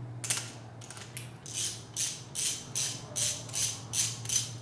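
Ratchet wrench clicking on its back-swings as a bolt is backed out, a steady run of short clicking bursts about two to three a second after a couple of spaced-out ones at the start.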